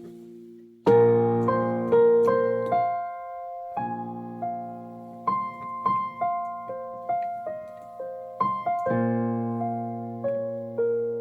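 Piano playing a slow piece: full chords struck about a second in, near four seconds and again near nine seconds, with single melody notes between them, each note fading away after it is struck.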